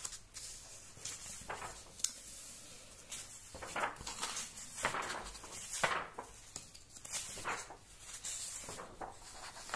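Pages of a magazine being turned one after another: several soft paper swishes and rustles a second or two apart, with a light click or two.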